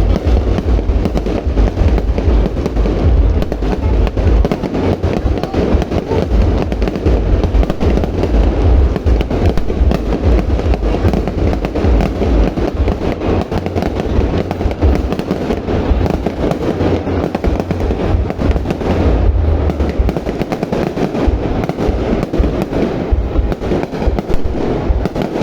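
Aerial fireworks display: a dense, unbroken barrage of bangs and crackles with heavy low booming.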